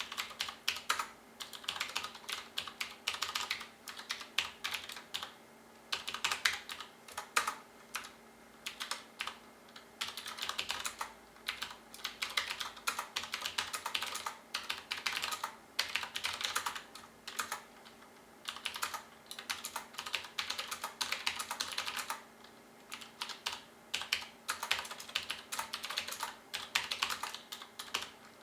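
Typing on a Qwerkywriter S typewriter-style mechanical keyboard with clicky Cherry MX Blue switches: a rapid clatter of keystrokes in bursts with short pauses between them.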